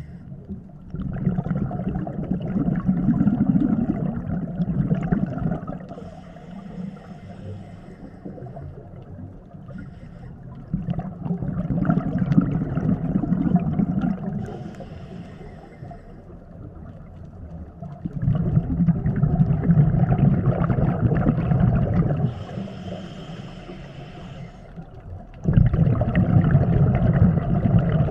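Scuba diver breathing through a regulator underwater: a short hissing inhale, then a long bubbling exhale, repeating about every seven seconds with four exhales in all.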